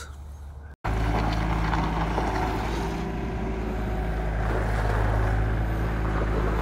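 Large dump truck's diesel engine idling steadily, a low even rumble that cuts in abruptly about a second in after a brief low hum.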